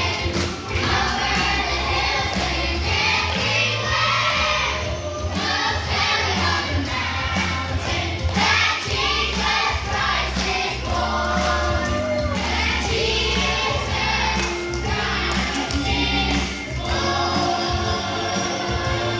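A choir singing a song over instrumental accompaniment with held bass notes.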